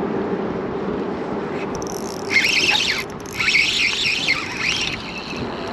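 Spinning reel's drag buzzing as a hooked bass takes line, in two bursts of high squealing, a short one and then a longer one, with a brief pause between.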